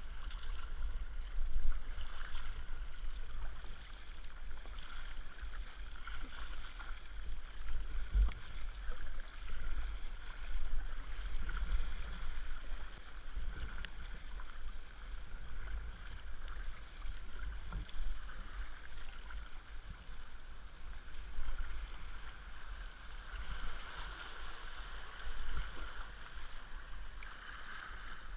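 Water splashing and rushing along the plastic hull of a kayak being paddled on a fast river, with paddle blades dipping, over a steady low rumble on the microphone.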